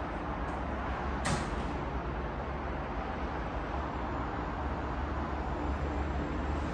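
Steady background rumble and hiss of room ambience, with one short sharp click about a second in.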